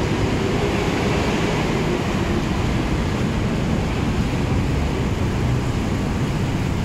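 Steady low rumble of city traffic and a slowly approaching commuter train, with no single sound standing out.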